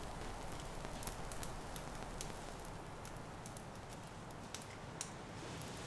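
Faint steady hiss with scattered light crackles and clicks, irregular and without any rhythm.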